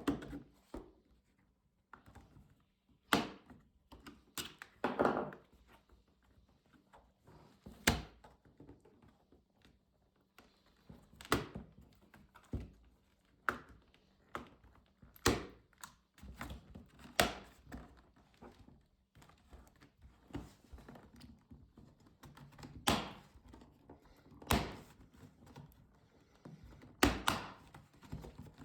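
Irregular sharp clicks and knocks of an HP Pavilion 17-f notebook's plastic casing and parts being handled and worked apart by hand, a dozen or so at uneven intervals, some followed by a short rattle.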